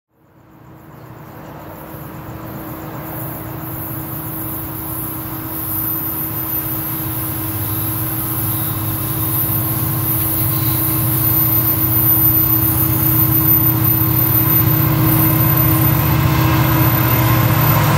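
Diesel freight locomotives approaching: a lead pair of EMD SD70M-2s with a GP40-2 behind, whose steady engine drone grows steadily louder as the train nears.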